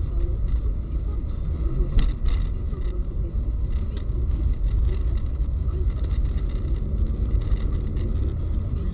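Steady low road and engine rumble heard inside a moving car's cabin, with a brief knock about two seconds in.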